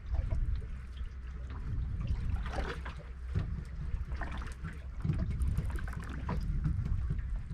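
Wind buffeting the microphone and water slapping against the hull of a small drifting boat, with scattered irregular knocks and clicks.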